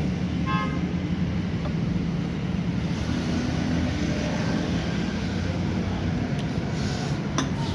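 A steady low machine hum, like an engine or motor running, with a brief high pitched note about half a second in and a couple of light clicks near the end.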